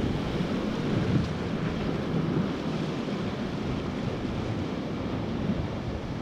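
Whitewater river rushing steadily, with wind buffeting the microphone.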